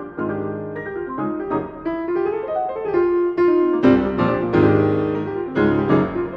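Piano four hands playing a jazz piece: quick melodic runs over low chords, growing louder with heavy full chords from about four seconds in.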